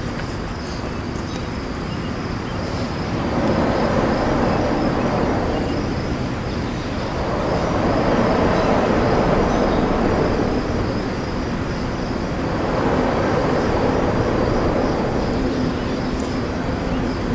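Outdoor ambience by the tracks: a low, noisy rumble that swells and fades three times, under a steady high-pitched buzz.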